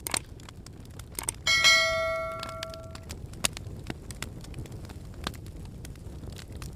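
Campfire crackling with scattered sharp pops. About a second and a half in, a single metallic ring, like a struck bell or piece of metal, sounds loudest and fades away over about a second and a half.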